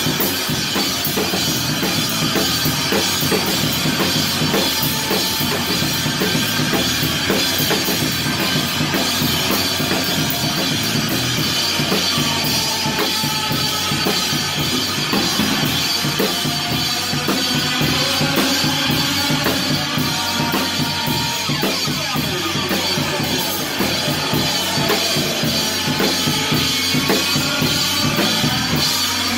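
Drum kit played hard and fast in a live band, heard close up: rapid snare, bass drum and cymbal strikes over the band's other instruments.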